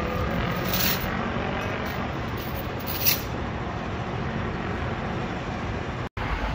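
Steady rumble of distant city traffic from far below, with two brief clicks about one and three seconds in and a short dropout near the end.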